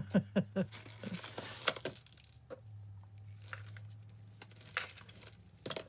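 Costume-jewellery chains and beads clinking and rattling as they are handled, in scattered sharp clicks that are busiest in the first couple of seconds and sparse after that.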